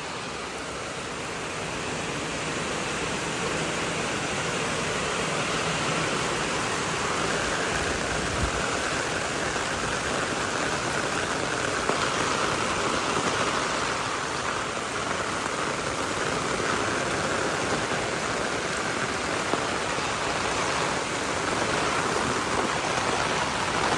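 Heavy rain pouring down steadily, a dense even hiss of water that builds a little over the first few seconds and then holds.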